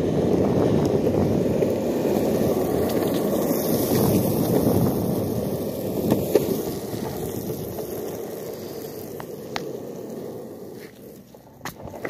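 Skateboard wheels rolling over pavement, a steady rough rumble that fades away near the end, followed by a couple of faint clicks.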